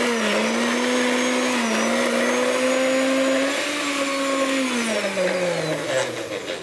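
Countertop blender motor running steadily, its blades pureeing a thick mix of hard-boiled egg, anchovies, lemon juice and olive oil into an emulsion. About five seconds in it is switched off and its pitch falls as it winds down.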